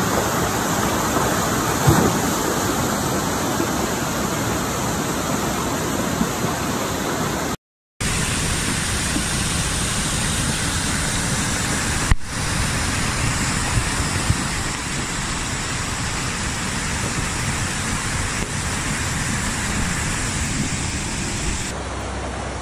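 Muddy floodwater rushing over rocks and stones as a steady, loud wash of water. The sound breaks off for a moment about eight seconds in and shifts slightly twice as the recordings change.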